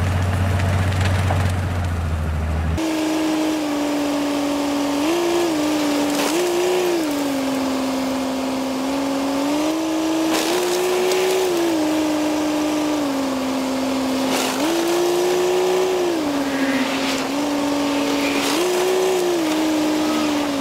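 Rail snowplow's engine running under load. A low rumble gives way about three seconds in to a steady whine that steps up and down in pitch every second or two, with a few sharp knocks.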